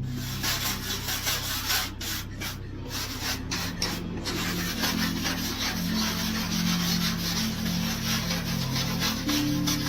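Abrasive rubbing on sheet metal, like filing or sanding, in repeated strokes with short breaks early on that run together later.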